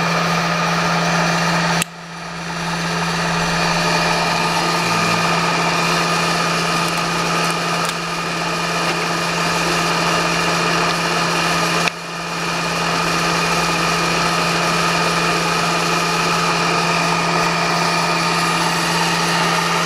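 Bridgeport milling machine's motorised table power feed running with a steady hum and whine. Twice, about two seconds in and again about twelve seconds in, it cuts out briefly and spins back up as the feed is switched.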